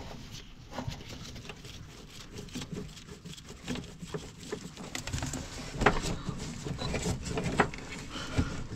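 Irregular light clicks and knocks, with a couple of sharper knocks past the middle.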